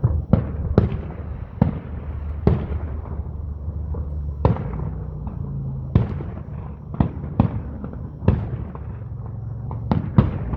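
Fireworks going off: about a dozen sharp bangs at irregular intervals over a steady low rumble, with several bangs close together near the end.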